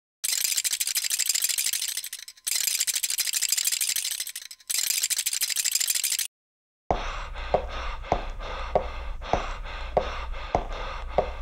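Cartoon bone-rattling sound effect in three bursts of about two seconds each. After a short gap, a steady beat of sharp knocks, a little under two a second, over a low hum.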